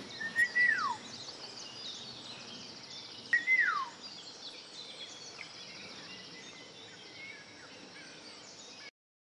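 Many small birds singing at once, a dense high twittering, with two louder calls about three seconds apart, each a held whistle that then drops steeply in pitch. The sound cuts off abruptly near the end.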